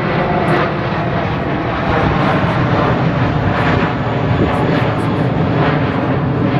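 Fixed-wing aircraft engine noise, loud and steady, getting a little louder about two seconds in.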